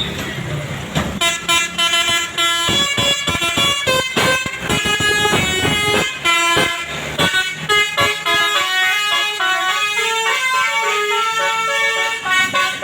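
Basuri musical air horn on a bus playing a 'telolet' tune: quick, clipped notes, then longer held notes in the second half.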